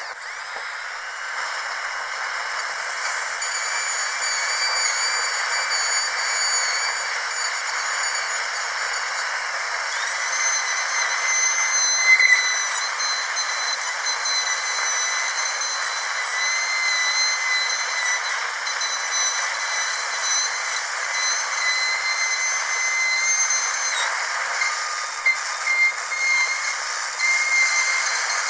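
High-speed dental drill whining at a steady high pitch over a constant hiss. The whine wavers and shifts pitch a few times, and swells briefly about twelve seconds in.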